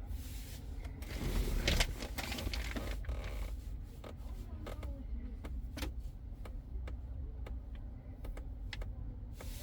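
Scattered key clicks and taps from operating a diagnostic scanner, irregular and spaced apart, with a rustling stretch about a second in, over a steady low hum.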